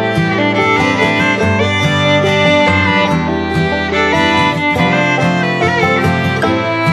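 Instrumental background music led by a fiddle, with guitar, in a country or bluegrass style.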